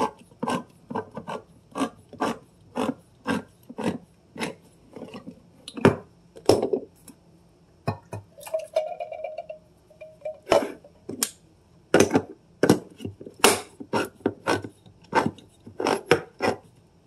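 Handheld manual can opener being cranked around tomato sauce cans: a steady run of clicks, about two a second, stopping for a few seconds about halfway through before the cranking starts again on the next can.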